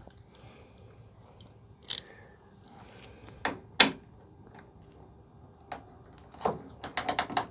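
Socket wrench with a Torx Plus 50 socket being worked on a tight tailgate bolt: separate sharp metallic clicks and knocks, then a quick run of several clicks near the end.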